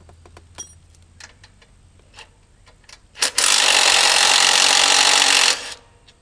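A few light metal clicks and knocks, then a power tool run in one loud, steady burst of about two and a half seconds that cuts off suddenly.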